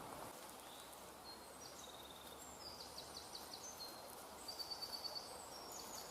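Faint woodland ambience with a songbird singing: short high whistled phrases and quick trills starting about a second in, a little louder just before the end.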